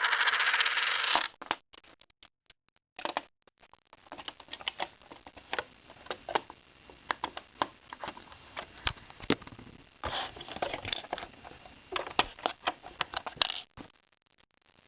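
Plastic Lego pieces and coins being handled: a dense rattle in the first second, then scattered small clicks and knocks, with busier rattling about ten and twelve seconds in.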